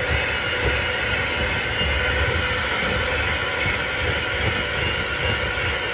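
Electric hand mixer running at low speed, its beaters churning softened butter and sugar in a glass bowl: a steady, even motor sound.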